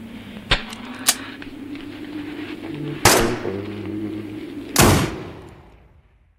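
Gunshot sound effects for a toy Desert Eagle pistol: two loud bangs about a second and a half apart, each with a decaying tail, preceded by two lighter clicks, over a steady low hum that fades away near the end.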